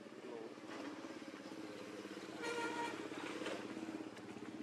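An engine running steadily with a fast even pulse, growing louder, with a short higher-pitched tone about two and a half seconds in.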